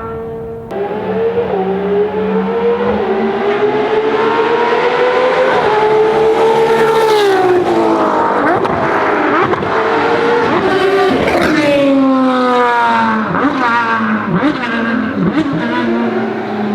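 Ferrari FXX Evoluzione's V12 engine on track: it climbs in pitch under hard acceleration, then drops through a run of downshifts with sharp throttle blips as the car brakes, and ends on a steadier, lower note.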